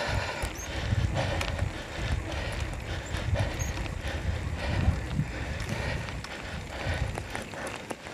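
Wind rumbling on a moving bicycle rider's camera microphone, a low rumble that swells and fades in irregular gusts, with faint ticks and road noise over it.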